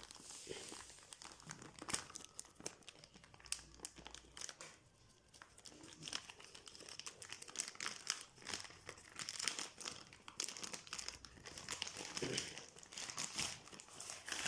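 Parcel packaging being cut open and unwrapped by hand: irregular crinkling with many sharp crackles.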